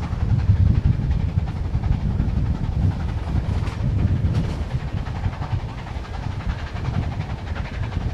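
Wind buffeting the microphone over the rumble of a passenger train running at speed on the rails.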